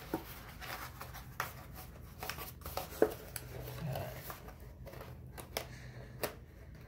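Stiff cardstock being handled and pressed into shape by hand: light rustling and scraping with scattered small clicks, and one sharper tap about three seconds in.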